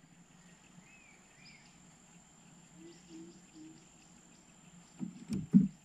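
Quiet riverside ambience: a steady high insect drone with a few faint bird chirps, then a short cluster of loud knocks and bumps on the wooden boat about five seconds in.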